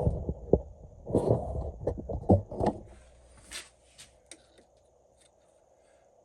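Light clicks and knocks of hand-handled metal tools while a turned part is measured, clustered in the first three seconds over a faint steady workshop hum.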